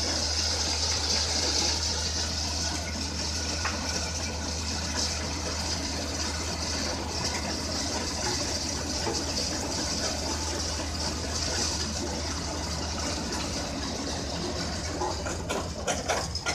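Excavator-mounted Aura bucket crusher running, with a steady hiss of crushed demolition rubble pouring from its jaws onto the pile over the excavator's steady diesel engine hum.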